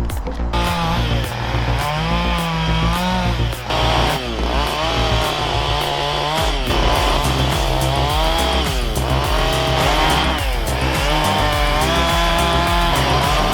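Chainsaw engine revving up and down in repeated sweeps, as when cutting, over background electronic music with a steady beat.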